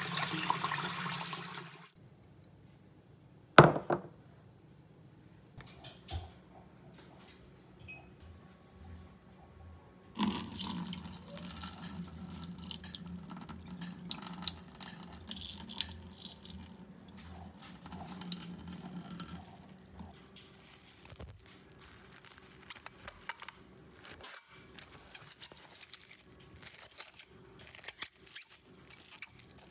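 Tap water running into a bowl of soaking mung beans, cut off about two seconds in, then a single sharp knock. Later comes several seconds of water being poured off the beans into a stainless steel sink, and then soft crinkling and small clicks of cling wrap being stretched over the bowl.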